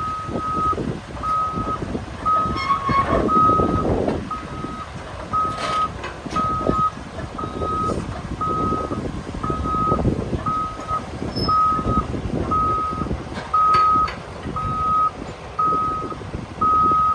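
Heavy machinery's backup alarm beeping steadily, a single high tone about once a second, over the rumble of a diesel machine moving, with a few knocks.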